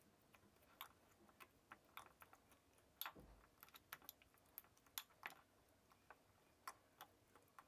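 Faint, irregular clicks of a metal fork against a small glass bowl as blueberries are mashed in it, with a slightly heavier knock about three seconds in.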